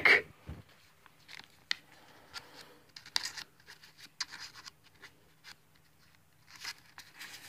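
Trading cards being handled, slid and set down by hand: a scatter of light scrapes and rustles, about one a second, with a slightly louder cluster near the end.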